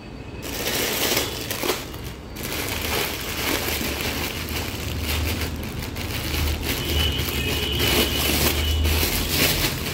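Plastic bag crinkling and rustling as it is handled, a steady run of small crackles, with dry herb pieces shifting inside.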